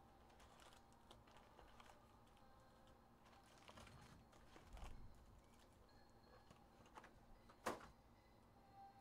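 Faint handling noise of a cardboard Donruss Optic hobby box being opened and its packs taken out: scattered light taps, scrapes and rustles, with one sharper click near the end.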